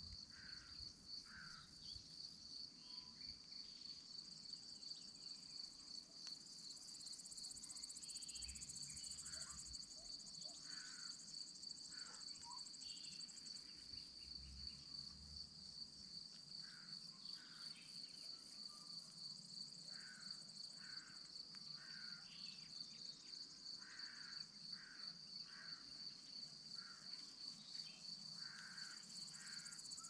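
Crickets chirping: a continuous, fast-pulsing high trill that holds steady throughout, with scattered faint short chirps around it.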